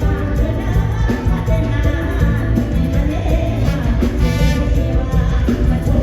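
Loud live band music with a singer over heavy, steady bass, played through a big stage sound system.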